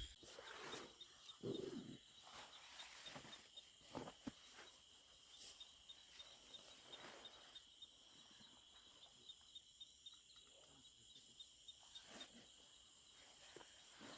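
Faint, steady high-pitched insect trilling, with a few soft scattered knocks and rustles.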